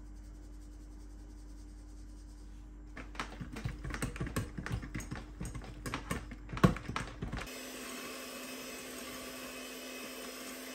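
A few seconds of irregular tapping and clattering, then an electric hand mixer (SEB Prep'Line) starts and runs steadily at one speed, its beaters working flour into cake batter in a glass bowl.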